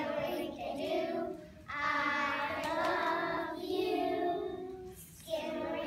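A group of young children singing a song together, in phrases broken by two short pauses.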